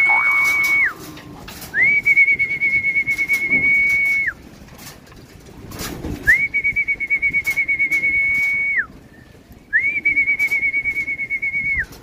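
A whistle blown in long, steady, high blasts of about two and a half seconds each, with a fast flutter. Each blast slides up at the start and drops off at the end: the tail of one about a second in, then three more with short gaps between. It is used to call racing pigeons in through the loft trap.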